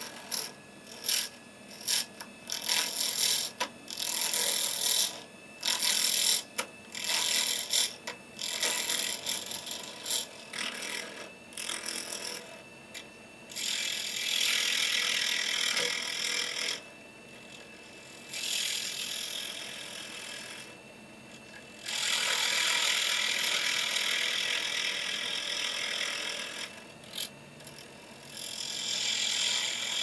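Carbide turning tool cutting a palo santo pen blank spinning on a wood lathe. For the first dozen or so seconds it makes short, choppy scraping cuts in quick succession as the blank is brought to round. After that come longer, steady cuts of a few seconds each, with short pauses between them.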